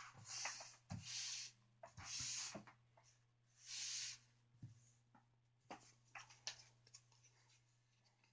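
Cardboard slices of a layered skull model rubbing and scraping as they are handled: three short scrapes in the first four seconds, then lighter rustles and small taps.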